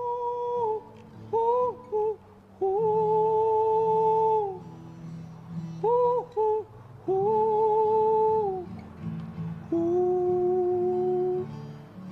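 Wordless humming of a slow tune over acoustic guitar chords: long held notes with short scooped notes between them, the last long note lower than the rest.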